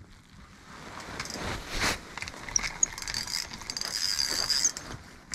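Small ice-fishing reel being cranked, its gears giving a rapid run of fine clicks with a thin whine, as a fish is reeled up through the ice hole. A louder scrape comes about two seconds in.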